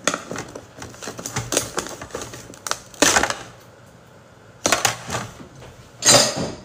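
Metal spoon and pick clicking and scraping against the hard shell of a large cooked crab in short irregular runs, with louder knocks about three seconds in, near five seconds and near the end.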